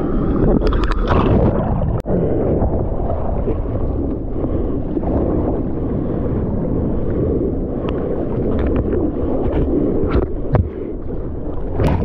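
Sea water sloshing and splashing against a bodyboard right at the camera, over a steady wash of surf and wind on the microphone. Sharper splashes come about a second in and again near the end as the camera goes into the water.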